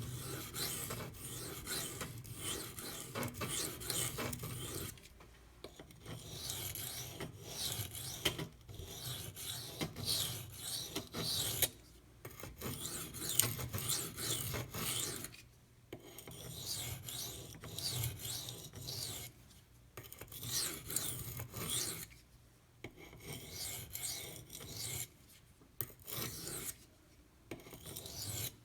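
Steel knife blade being stroked back and forth across a sharpening stone, a rasping scrape in runs of strokes a few seconds long with short pauses between runs.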